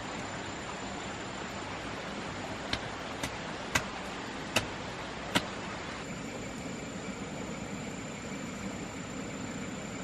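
Steady outdoor forest ambience, an even hiss with a thin high steady tone. It is broken near the middle by five short, sharp knocks about half a second to a second apart.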